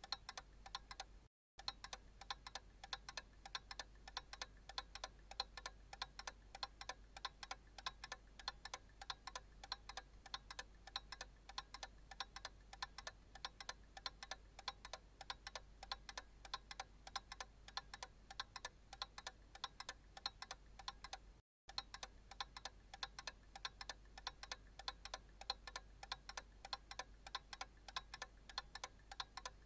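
Analog clock ticking steadily and evenly. The ticking cuts out completely for a split second twice.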